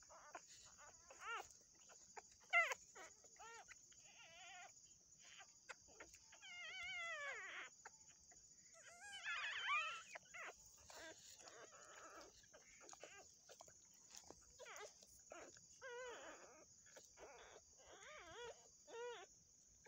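Newborn puppies crying: many short, high-pitched squeaks and wavering whines one after another, with a few longer, louder cries partway through.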